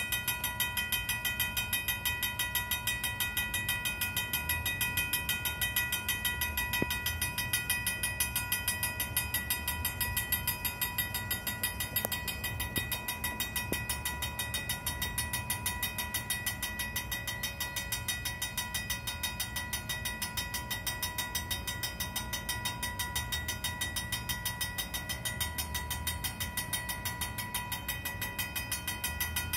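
Vintage mechanical railroad crossing bell ringing fast and steadily in rapid, even strokes, with a low rumble beneath.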